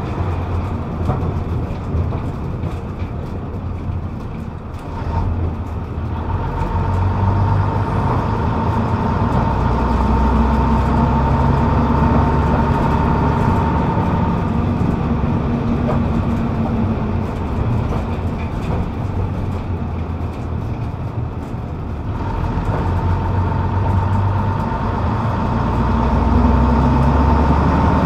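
Leyland Atlantean bus's rear-mounted Leyland O.680 diesel engine heard from the back seat, pulling and easing off as the bus drives on. A steady high whine rides over the engine in two stretches, and the engine note shifts about six seconds in and again near the end.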